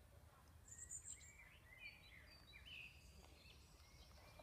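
Near silence, with faint birds chirping a few times over a low steady background hum.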